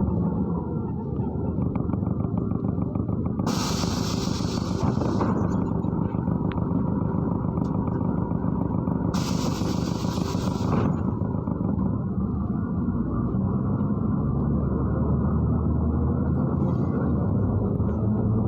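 Ride inside a MAZ-103 city bus: steady engine and road noise. Two hisses of compressed air, each under two seconds, come about four and nine seconds in. Near the end the engine note rises as the bus picks up speed.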